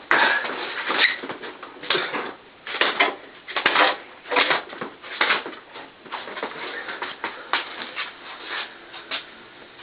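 People exercising: an irregular run of scuffs, thumps and rustles of bodies moving, louder at first and tailing off near the end.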